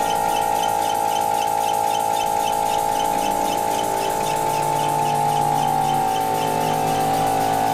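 Background music of held orchestral chords, the low note changing about four seconds in and again about six seconds in, with a faint quick ticking about five times a second.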